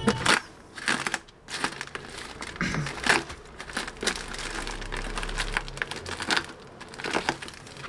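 Plastic courier mailer bag being torn open by hand: irregular crinkling and ripping of the plastic.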